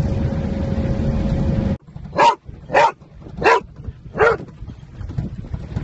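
Steady rumble of a vehicle driving a dirt road, heard inside the cab with a faint steady hum, cut off abruptly about two seconds in. Then a dog in the cab barks four times, about 0.7 s apart.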